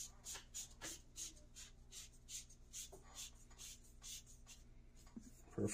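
Threaded closure being screwed by hand onto an aluminium rocket motor case: a faint, even series of short rasping scrapes, about four a second, as the threads turn. A louder knock comes right at the end.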